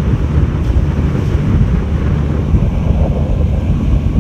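Wind buffeting the microphone: a loud, uneven low rumble with no steady tone.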